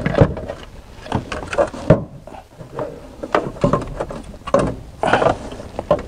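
Alternator being worked by hand into a tight engine bay: irregular knocks, clunks and scrapes of its metal housing against the parts around it, with a sharper knock about two seconds in.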